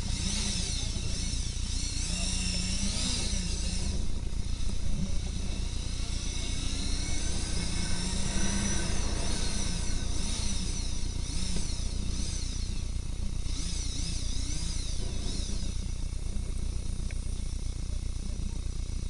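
Motorcycle running as it is ridden, with a steady low rumble of wind and engine on the bike-mounted camera. Above it is a high chirping that sweeps up and down over and over.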